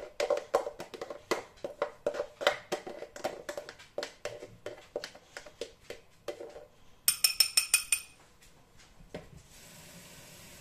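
Red plastic hand citrus juicer knocked repeatedly against the rim of a drinking glass to shake the last orange juice out, about three knocks a second, slowing and fading. About seven seconds in comes a brief bright ringing clink, and near the end a steady hiss starts.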